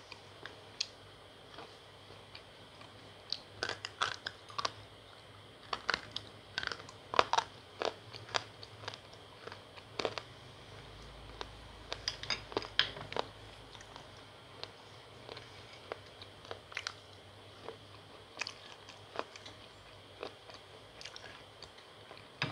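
Slate pencils and their paste crunching: sharp, irregular crackles that come in clusters, busiest in the first half and sparser towards the end.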